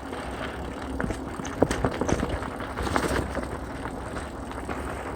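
Mountain bike coasting down a dirt singletrack: tyres rolling over the trail, with scattered clicks and knocks from the bike and a steady low rumble of wind on the microphone.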